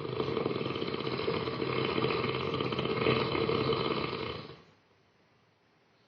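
A woman snoring loudly: one long, rattling snore of about four and a half seconds that stops abruptly, followed by quiet breathing.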